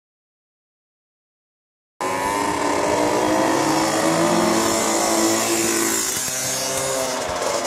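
After about two seconds of silence, a loud Honda PA50II Hobbit moped's single-cylinder two-stroke engine running hard uphill, its pitch bending up and down as it passes.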